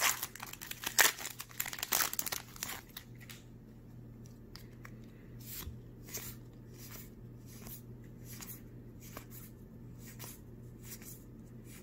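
A Magic: The Gathering booster pack's foil wrapper being torn open and crinkled for the first two or three seconds. Then come light, regular clicks about twice a second as the cards are handled one by one, over a faint low hum.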